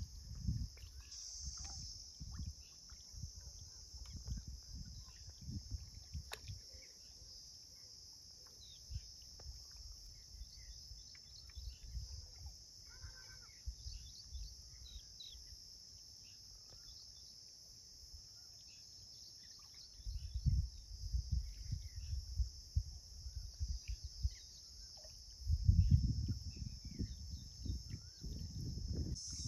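Outdoor ambience: a steady high insect drone with scattered small bird chirps over it. Low gusts of wind buffet the microphone at the start and again through the last third.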